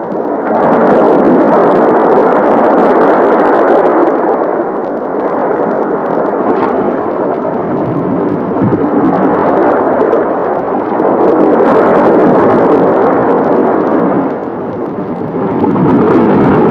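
Sea surf breaking and washing over a rocky shore: a steady rush of noise that swells and eases several times.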